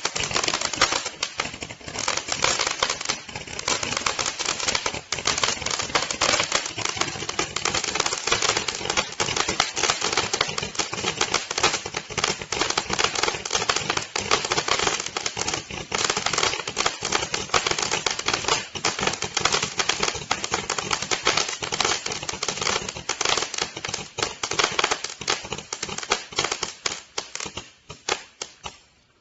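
Large 660-shot Roman candle firing: a dense, rapid run of pops from the shots and their bursts. It goes on without a break, then thins to a few last pops and stops near the end.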